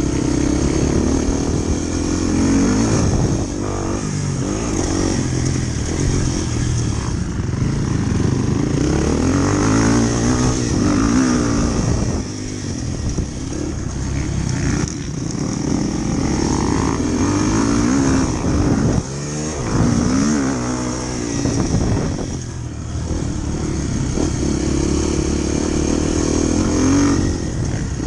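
Motorcycle engine running while being ridden, its pitch rising and falling again and again with throttle and gear changes.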